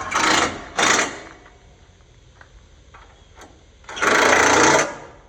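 Impact wrench hammering bolts tight: two short bursts in the first second, then one longer burst of about a second near the end.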